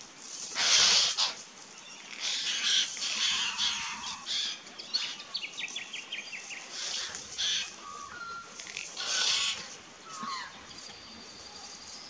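White-winged choughs giving harsh, rasping calls several times, loudest about a second in and again near the end, with a quick falling run of short notes and a few brief whistles between them.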